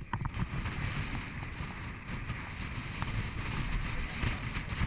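Vehicle cabin noise while driving on a sand-covered road: a steady low rumble from engine and tyres with a hiss over it.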